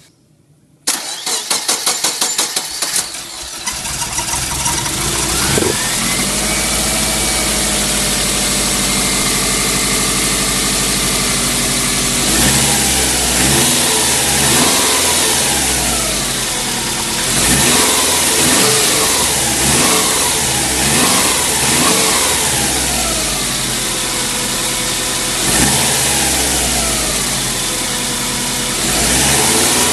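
Subaru EJ205 turbocharged flat-four engine cranked by the starter about a second in, catching after about two seconds of cranking and settling into idle. From about halfway through, the throttle is opened several times, each rev rising and falling back to idle.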